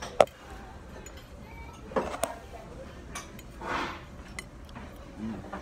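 Metal fork clinking against a plate while eating. There is one sharp, loud clink near the start and two more about two seconds in.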